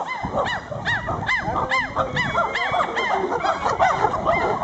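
Several chimpanzees calling at once: a fast, overlapping series of rising-and-falling hoots, two or three a second, over a low rumble.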